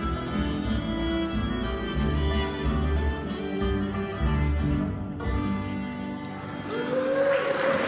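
String band playing the closing instrumental bars of a country blues song: fiddle over guitar and upright bass. The music ends about six seconds in, and applause starts near the end.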